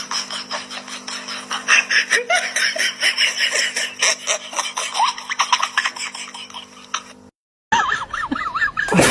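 Laughter with many short clicks, broken by a brief moment of silence about seven seconds in, after which the laughing sounds start again.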